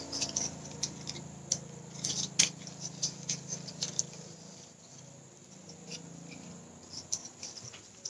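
Split young coconut leaf strips rustling and crinkling as they are folded and pulled through a weave by hand: a run of small crisp clicks, thickest in the first half and sparser after.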